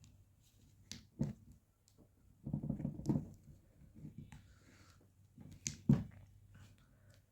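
Handling noises from small objects: a few sharp taps and clicks, with a short cluster of scuffing and knocking about two and a half seconds in and a louder click near the end.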